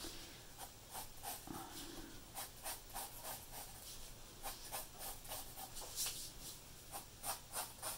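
Faint scratching of a graphite pencil on paper as lines are drawn over. The short, irregular strokes come a couple of times a second.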